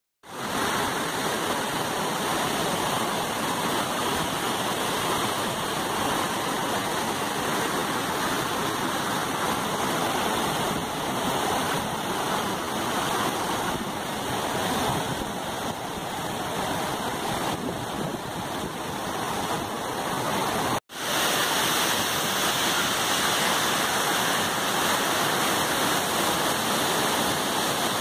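Waterfall: a river pouring over rock ledges, a steady full rush of water. The sound cuts out abruptly for an instant about two-thirds of the way through, then comes back.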